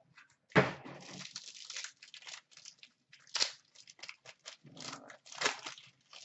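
Foil wrapper of a 2015-16 Upper Deck SP Game Used hockey card pack crinkling and tearing as it is opened by hand, in irregular crackly bursts, the sharpest about half a second in.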